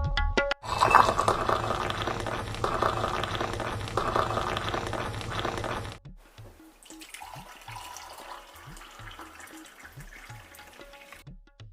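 Tea being poured in a steady stream for about five seconds. It then drops to a much quieter stretch of faint, irregular low sounds.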